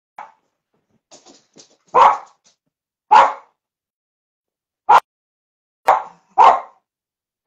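A dog barking in single separate barks, five loud ones spaced roughly a second apart.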